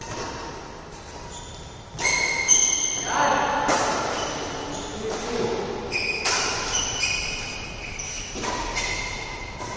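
Badminton rackets striking a shuttlecock in a doubles rally, a string of sharp ringing pings about a second apart starting about two seconds in, with players' voices.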